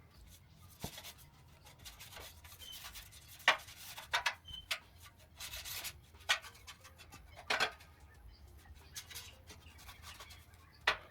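Irregular rubbing and scrubbing strokes on bare car-body sheet steel as deoxidizer rust converter is brushed on. A few of the strokes are sharper and louder, and one longer scrub comes about halfway through.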